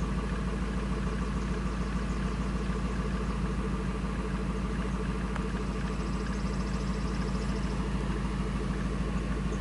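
1999 Ford F250's 5.4-litre V8 idling steadily and smoothly, its earlier surging, rough idle now fixed.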